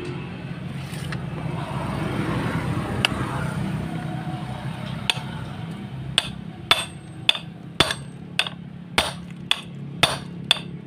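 Hammer blows on a steel drift punch seated in a valve guide of a small motorcycle's aluminium cylinder head, driving the guide out. Two single sharp taps come first, then from about six seconds in a steady run of strikes, nearly two a second.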